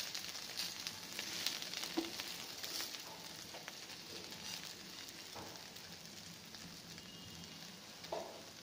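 Butter sizzling under slices of garlic bread toasting on a non-stick pan, the sizzle slowly dying down. Now and then a metal spatula scrapes and taps against the pan as the slices are turned and moved.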